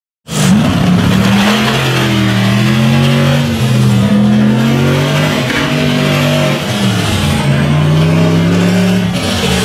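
Rock bouncer buggy's engine revving hard as it climbs a steep dirt hill, its pitch rising and falling again and again. It cuts in suddenly just after the start.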